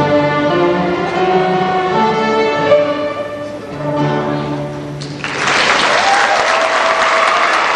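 A sixth-grade string orchestra of violins, cellos and double basses plays the closing bars of a piece, ending on a held chord. About five seconds in, the audience breaks into loud applause.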